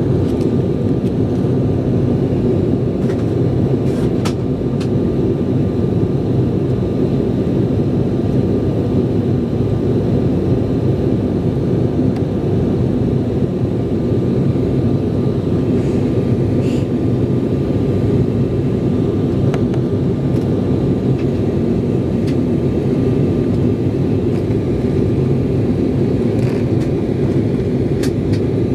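Steady cabin noise of an Embraer E-Jet in the climb after takeoff: a dense low rumble of turbofan engines and airflow, with a faint steady whine above it and a few small ticks.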